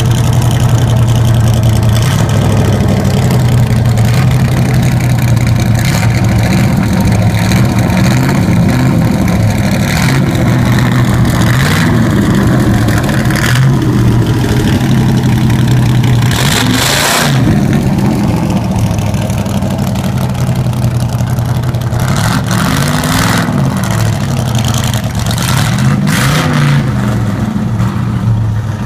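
Race-prepared C2 Corvette Sting Ray's V8 running loud through its race exhaust, idling with several short throttle blips that briefly raise the pitch, the strongest about halfway through.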